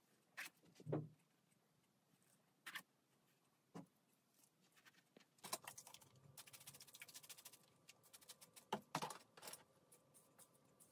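Quiet handling sounds of styling tools and a wig: scattered clicks and taps, a soft thump about a second in, and a couple of seconds of fast crackling in the middle.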